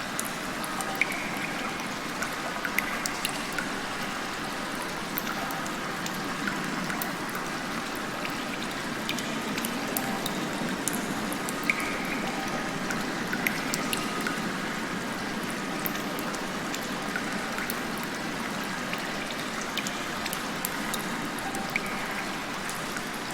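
Rain heard from inside a cave: a steady wash of falling water with scattered sharp drips of drops landing close by.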